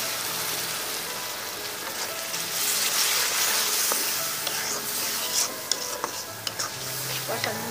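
Onion, green chili and spice paste (masala) sizzling hard in hot oil in a kadai just after a splash of water, being stirred and fried down with a spatula. The hiss swells in the middle, and the spatula knocks against the pan a few times in the second half.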